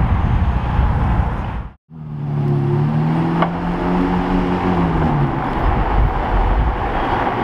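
Low street rumble, then, after a sudden break, a Ferrari SF90 Stradale's twin-turbo V8 pulling away, its note rising a little and then falling away as it goes.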